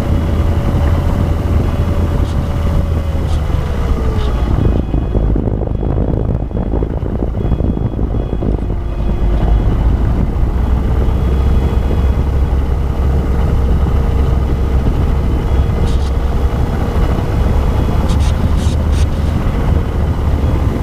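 Electric motor and propeller of an E-flite Apprentice RC airplane whining over heavy wind rush. The pitch falls about four seconds in as the throttle eases, then holds steady again from about ten seconds and creeps up near the end.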